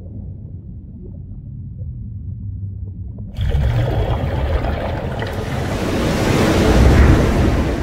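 Intro sound effect: a low rumble, then a sudden rushing whoosh about three seconds in that swells to a peak near the end and eases off.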